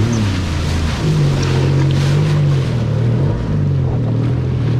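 1100 cc jet ski engine running under way. Its pitch rises about a second in, dips briefly past three seconds, then holds steady, over a rush of wind and water.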